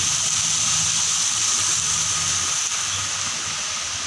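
Water pouring steadily over small cascades into a stone-lined garden pond, a constant rushing hiss.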